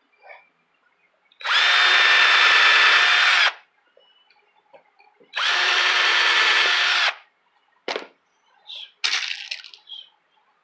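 Cordless drill/driver running in two steady bursts of about two seconds each, with a held whine, driving the screws that fasten a spring speaker terminal into its block. A few short knocks follow near the end.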